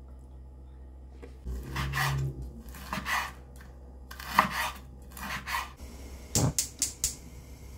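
Kitchen prep sounds: a knife slicing and chopping raw pork on a wooden cutting board, with one sharp knock of the blade on the board. Near the end comes a quick run of about five sharp clicks from a gas stove burner's igniter.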